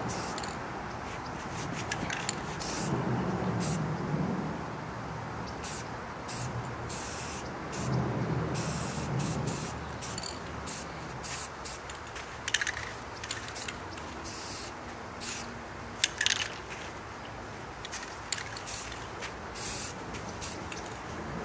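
Aerosol spray paint can hissing in many short bursts and a few longer ones as paint is sprayed onto a wall.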